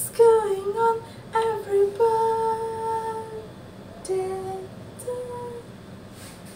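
A woman singing a short wordless tune: a few quick notes, then one long held note, then two softer notes as it tails off.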